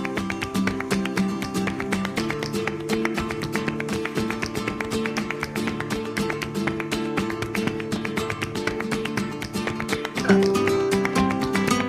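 Background music led by guitar, with a quick steady rhythm; it grows louder with a new phrase about ten seconds in.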